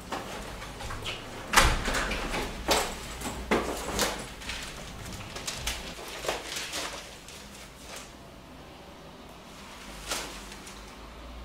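Household handling noises in a flat: a run of sharp knocks and thumps, the loudest about one and a half seconds in, like a door and footsteps on a wooden floor. Then softer rustling of a newspaper being opened as someone sits down on a sofa, and one more knock near the end.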